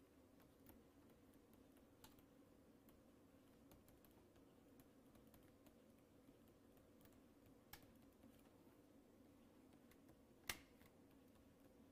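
Near silence: a low steady hum with scattered faint clicks from a stylus tapping on a pen tablet during handwriting. The sharpest click comes about ten and a half seconds in.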